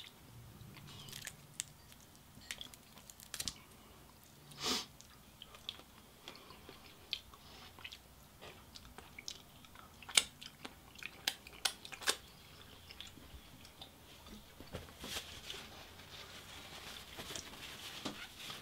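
Quiet close-up mouth sounds of eating a saucy Cajun seafood boil by hand: chewing with scattered small wet clicks and smacks as sauce is licked off the fingers. A faint rustle builds near the end.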